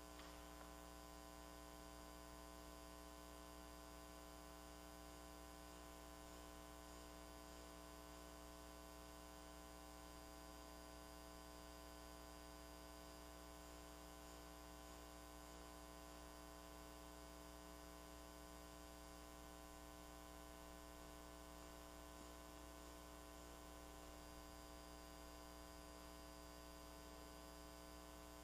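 Near silence with a faint, steady electrical mains hum made of several held tones.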